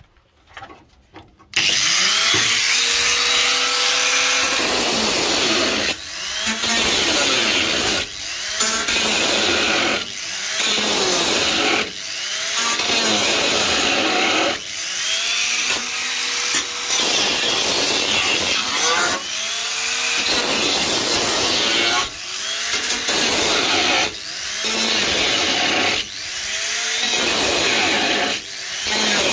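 Angle grinder with a thin cut-off disc cutting through sheet-steel car floor panel, starting about a second and a half in. Every two seconds or so the cut eases off, the motor dips and winds back up to speed.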